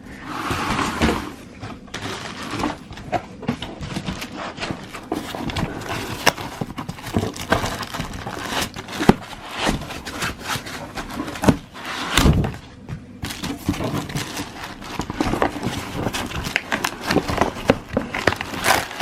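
A soundbar and its packaging being handled during unboxing: continual rustling and scraping with many small clicks and knocks. There are sharp knocks about nine and eleven seconds in, and a heavier thud about twelve seconds in.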